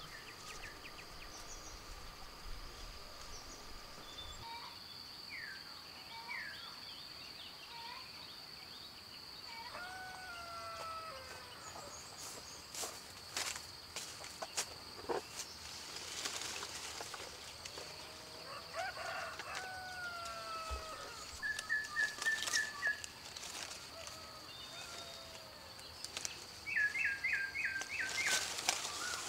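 Rural orchard ambience: birds call with short whistled, curving notes and a few rapid trills over a steady high-pitched drone of insects. Near the end there is leafy rustling and snapping as sapodilla fruit is picked from the branches.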